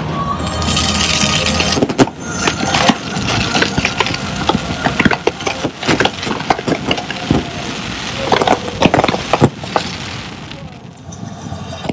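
Close-range display fireworks going off. A hissing first two seconds gives way to a rapid, irregular run of sharp bangs and pops, which thins out near the end.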